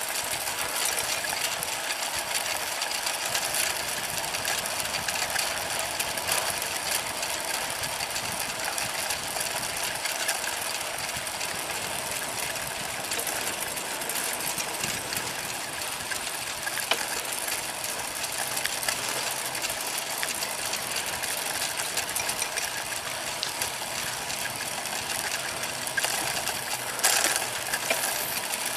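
Bicycle riding along an asphalt path: a steady ticking, rattling mechanical hiss from the bike, with a brief louder clatter near the end.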